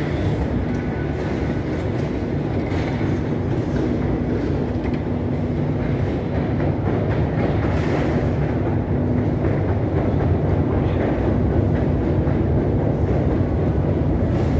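Steady low mechanical rumble and hum of a metro escalator running, with faint clacking, growing slightly louder near the end.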